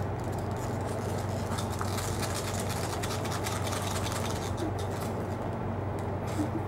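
Steady low hum of a wall-mounted air conditioner running, with faint rustling and light clicks as a plush doll is handled.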